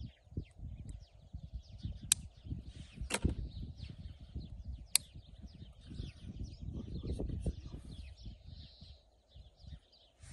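Small birds chirping in the background over an uneven low rumble, with three sharp clicks, about two, three and five seconds in, as a leg ring is handled and fitted on a white stork's leg.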